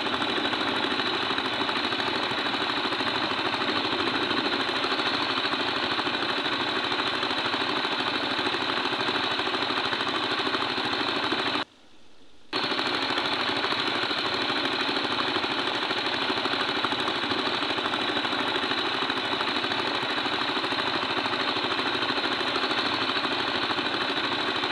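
Boat engine running steadily with a rapid knocking chug. It cuts out for under a second about halfway through, then runs on unchanged.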